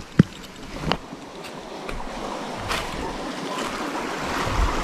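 Rushing of a small river's flowing water, swelling gradually louder, with one sharp click just after the start.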